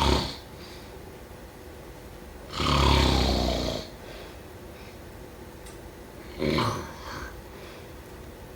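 A person snoring in sleep. There is a long, loud snore about two and a half seconds in lasting just over a second, then a shorter, quieter one about six and a half seconds in, with quiet breathing between.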